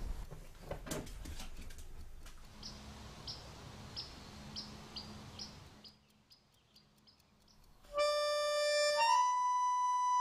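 A few faint knocks, then soft high chirps repeating about twice a second. After a near-silent stretch, music with long held notes comes in loudly near the end and steps to a new chord about a second later.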